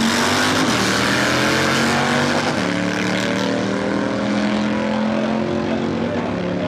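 Two V-twin touring motorcycles, a Harley-Davidson bagger and a Victory Vision, accelerating hard off the drag strip start line. The engine note climbs and drops back at the upshifts, about half a second and two and a half seconds in.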